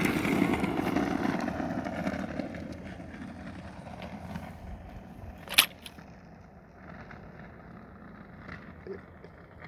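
Small wheels of an electric scooter and hoverboard rolling over pavement, a rushing noise that fades over the first few seconds as they move off, then a single sharp knock about five and a half seconds in.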